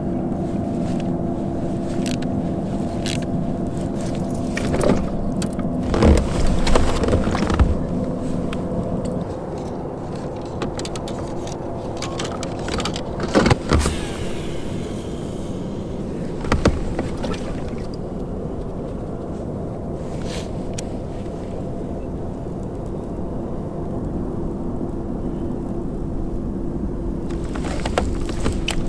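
A motor hums steadily at one even pitch throughout. A few sharp knocks come through it, the loudest about six, seven and thirteen seconds in.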